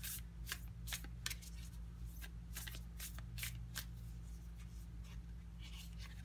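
Oracle cards being shuffled by hand: a string of crisp card clicks and slaps for about four seconds, then a soft rustle near the end.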